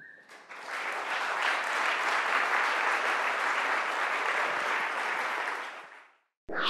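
Audience applauding after a talk, a dense steady clapping that fades out near the end.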